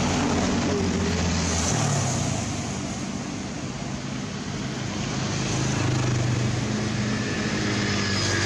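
Steady rushing noise with a low motor hum whose pitch shifts a few times, like a motor vehicle engine running.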